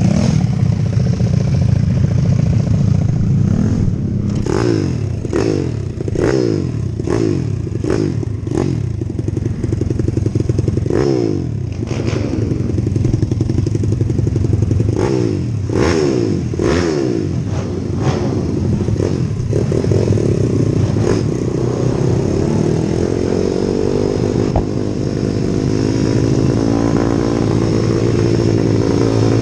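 IMR 190cc pitbike's single-cylinder engine heard from on board, running with a run of quick throttle blips, the revs rising and falling about once a second, from about 4 to 9 seconds in and again from about 15 to 19 seconds in. From about 20 seconds in the revs climb steadily as the bike pulls away.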